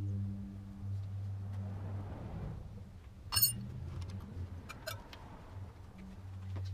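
A single sharp metallic clink with a short ring about three and a half seconds in, then a few lighter clicks a second later, over a steady low hum: metal tools and parts being handled while a motorcycle's front wheel is taken off.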